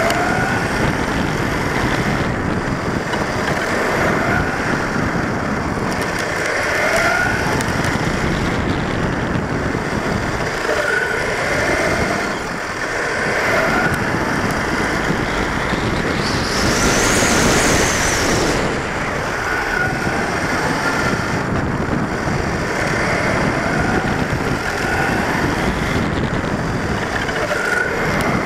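Onboard sound of a HobbyKing Trooper 1/10 4x4 short-course RC truck lapping a paved track: its electric motor and gears whine, rising again and again as it speeds up out of the corners, over a steady rush of tyre and wind noise. About two-thirds of the way through there is a louder stretch of a couple of seconds with a high whine.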